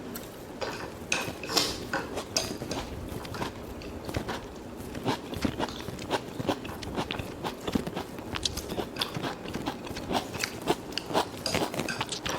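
Close-up eating sounds: steady chewing with many sharp, crisp crunches scattered throughout, as of biting into fried, crumb-coated food.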